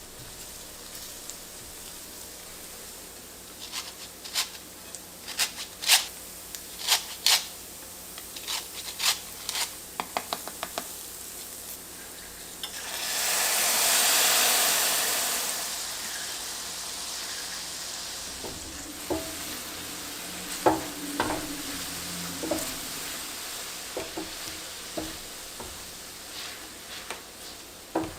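Food frying in a pan while being stirred: a utensil clicks and knocks against the pan, then about halfway a loud rush of sizzling swells up and settles into a steady sizzle with more knocks.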